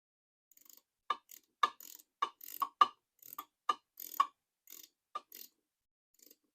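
Hand ratchet wrench clicking in short strokes, about two sharp metallic clicks a second, as bolts on a small engine are run down snug before torquing.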